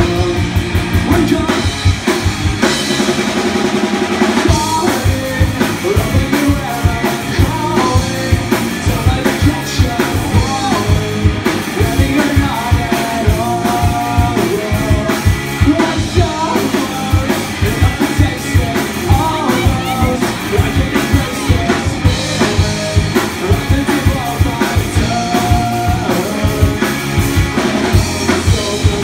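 Live rock band playing: electric guitar, bass guitar and a drum kit keeping a steady beat, with a male lead vocal at the microphone.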